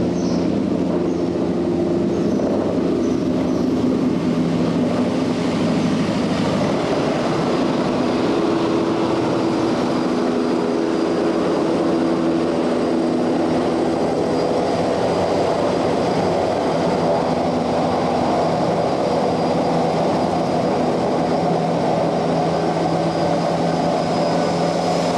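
Bell 206 JetRanger helicopter's turbine and two-blade rotor running steadily as it hovers in and settles onto the pad: a loud, even rotor chop with a steady engine hum under it.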